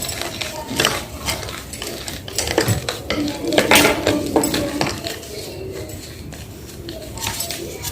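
Blocks of gym chalk being crushed: a run of irregular crisp crunches and crackles, densest and loudest about four seconds in.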